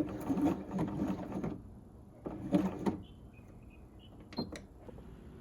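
Janome J-885 sewing machine running in a short burst of stitching that stops after about a second and a half, then a second brief run; a couple of sharp clicks follow near the end.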